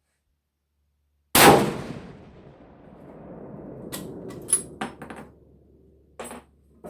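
A single loud rifle shot from a 416 Ruger (a Ruger M77 Hawkeye guide gun firing a 350-grain brass solid) about a second in, with a long echoing tail. A few sharp metallic clicks follow a few seconds later.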